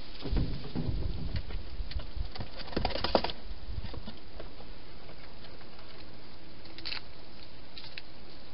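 Wild hedgehog at its food bowls inside a clear plastic feeding box: a busy run of crunching, clicks and soft knocks for about the first three seconds, then only a few faint ticks over a steady hiss as it moves off.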